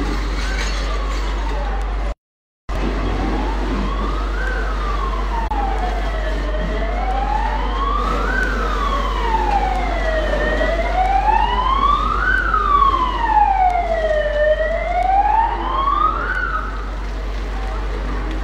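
Emergency vehicle siren wailing in a slow rise and fall, about one cycle every four seconds. It grows louder toward the middle and stops shortly before the end.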